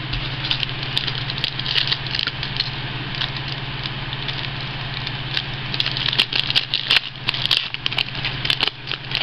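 Foil trading-card pack wrapper crinkling and crackling close to the microphone as it is handled and opened, with many sharp crackles that grow busier in the second half, over a steady low hum.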